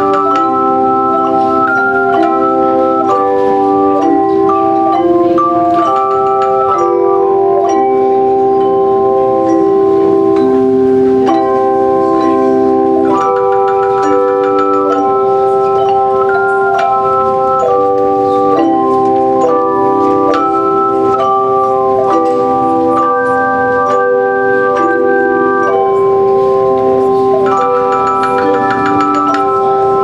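A bell choir playing hand-held bells in a slow piece. Struck notes ring on and overlap into held chords, and the melody moves by a new bell note every second or so.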